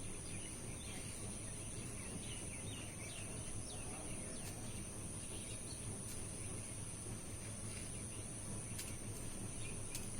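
Outdoor ambience: a steady, high insect drone with scattered short bird chirps over a constant background noise.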